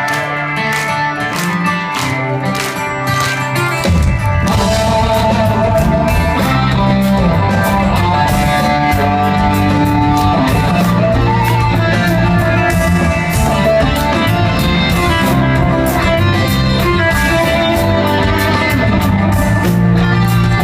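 Live rock band playing an instrumental passage led by guitar. The low end of bass and drums comes in heavily about four seconds in.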